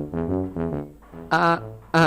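Background music: a brass instrument playing a run of short, bouncy notes, with a louder, brighter note near the end.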